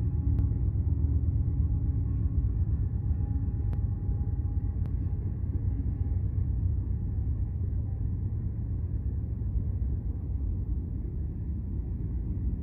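Freight train rolling past: a steady low rumble of wheels on rail from the passing freight cars, with a faint hum in the first few seconds as a Union Pacific diesel locomotive goes by, and a few faint clicks.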